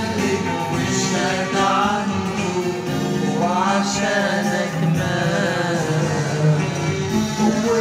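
A man singing an Arabic church hymn to accordion, bass guitar and drums, played back through a television's speaker.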